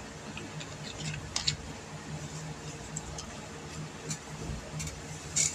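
Scattered soft clicks and taps of hands working pizza dough in a metal mixing bowl, the sharpest ones about one and a half seconds in and near the end, over a steady low hum.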